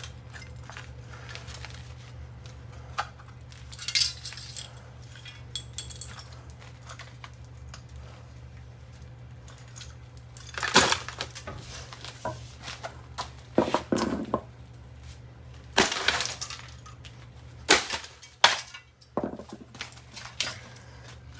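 Scattered sharp knocks and clinks of a ceiling fan's metal housing and light-fixture parts being struck and broken apart. There are a couple of strikes early, then a denser run of hits and clattering in the second half, over a steady low hum.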